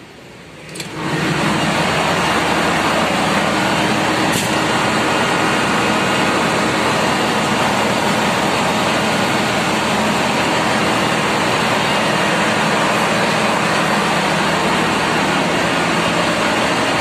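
Loud, steady din of a ship's engine room with the large main diesel engine running. It goes from muffled to full loudness about a second in, on stepping out of the enclosed control room onto the machinery floor.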